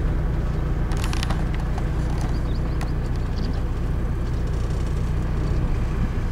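Steady low rumble of a moving open-top sightseeing bus heard from its top deck: engine and road noise mixed with wind on the microphone. A few brief clicks about a second in.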